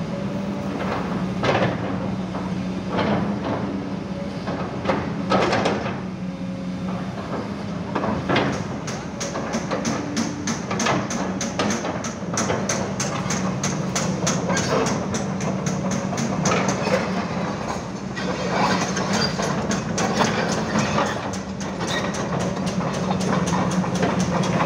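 Kobelco SK200-8 excavator's diesel engine running with a steady low hum, with scattered knocks and clicks over it.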